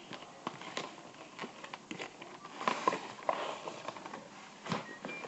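Hands handling toy packaging and small plastic pieces: a string of light clicks and taps, with a short crinkly rustle about three seconds in.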